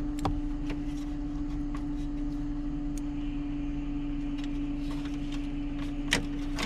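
Electric fuel pumps humming steadily at one pitch, with a few sharp clicks from toggle switches and wiring being handled, the loudest about six seconds in.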